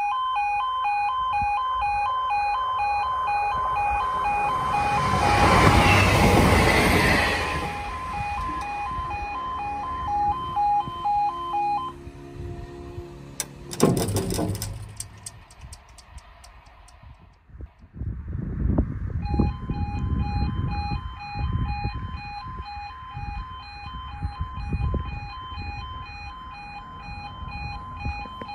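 Level crossing's two-tone warning alarm sounding steadily while a train rushes past at speed, loudest around 6 seconds in. The alarm stops about 12 seconds in, a sharp knock follows near 14 seconds, and the alarm starts again about 19 seconds in, warning that another train is coming.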